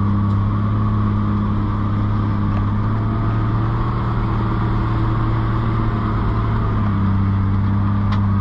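Toyota LandCruiser 80 Series engine pulling steadily under load as the vehicle climbs a steep, rutted four-wheel-drive track, heard from inside the cabin as a continuous low hum with road noise.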